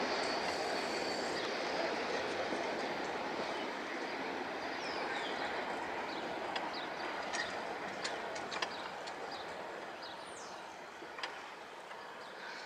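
BNSF diesel freight locomotive and coal cars rumbling past and fading steadily as the train moves away. Short high chirps, likely birds, and a few sharp clicks show up over the fading rumble in the second half.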